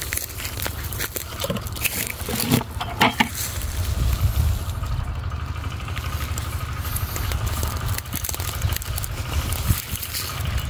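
Rustling and crackling of dry weeds and leaf litter with a few sharp snaps, louder a few seconds in, over a steady low rumble of wind on the microphone.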